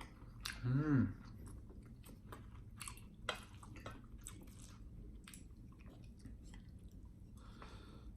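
A person chewing food close to the microphone, with wet mouth clicks and smacks throughout. There is a short hummed "mm" about a second in.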